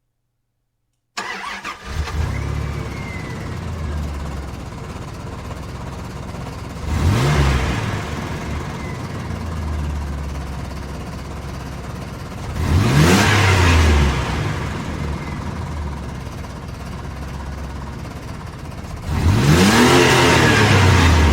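Car engine starting about a second in and then idling unevenly, the sign of poor, rough running. It is revved three times, the pitch rising and falling each time, about six seconds apart.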